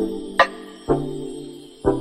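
Background music with a steady beat: sharp percussive hits about twice a second over sustained pitched notes.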